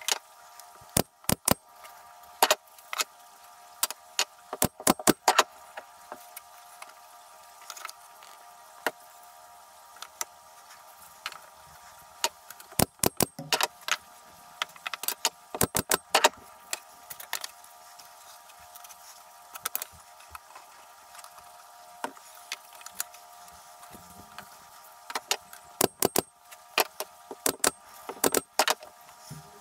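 Pine crate slats and plywood spacer blocks being handled and set in place: sharp wooden clicks and clacks in quick clusters of two to five, coming several times, over a steady faint hum.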